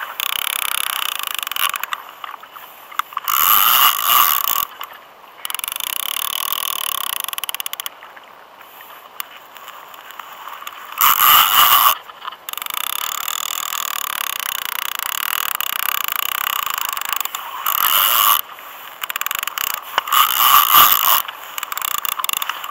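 Multiplier fishing reel's drag and ratchet running as a big hooked fish pulls line off, with several louder spells. The angler takes the fish to be a shark.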